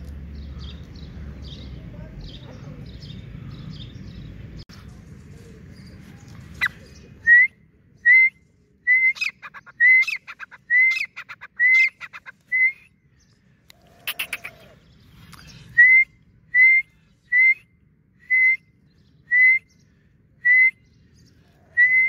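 Francolins calling: a run of loud, short whistled notes that each hook upward, repeated a little under once a second with a pause in the middle, after fainter high peeps over a low rumble in the first few seconds.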